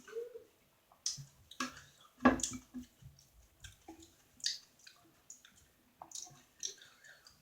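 Close-miked wet eating sounds: chewing with irregular lip smacks and mouth clicks, and one louder, fuller sound about two seconds in.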